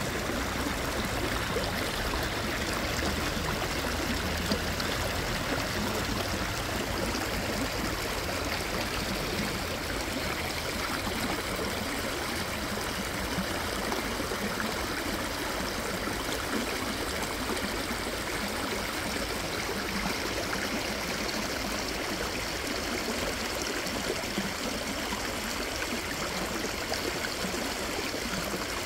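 Shallow stream water flowing and splashing over rocks and stones, a steady, unbroken babble.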